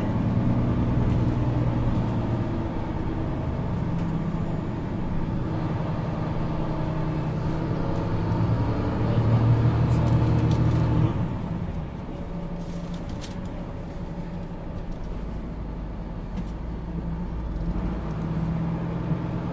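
Mercedes-Benz Citaro C2 city bus engine running, its hum growing stronger about nine seconds in, then dropping suddenly to a lower, steady level about eleven seconds in.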